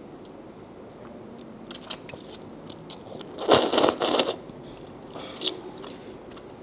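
A person eating: noodles slurped into the mouth in one loud hissy pull about three and a half seconds in and a shorter one about two seconds later, with scattered small biting and chewing clicks.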